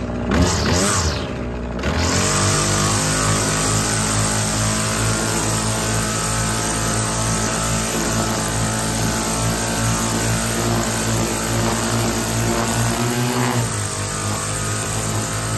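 String trimmer spinning up over the first couple of seconds, then running steadily at speed while it cuts grass along a concrete edge. Its pitch dips and recovers about thirteen seconds in.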